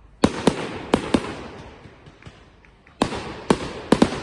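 Fireworks exploding: a quick string of four sharp bangs, then about three seconds later a second string of four, each bang trailing off in a fading rumble.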